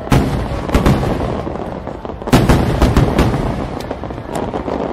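Aerial firework shells bursting in a display: a run of sharp bangs, the loudest about two and a half seconds in, with a rolling echo between them.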